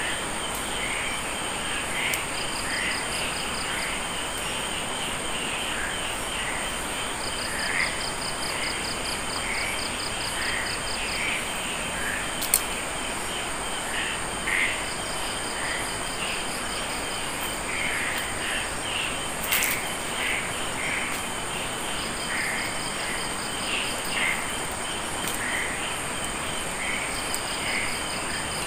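Chorus of insects such as crickets: a steady high-pitched shrill, a pulsed trill that starts and stops several times, and scattered short chirps lower down. Two sharp clicks sound, about halfway and two-thirds of the way through.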